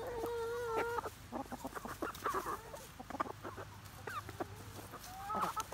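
Pullets (young hens) clucking and calling as they forage. A long held call comes in the first second, then a scatter of short clucks, and a rising call near the end.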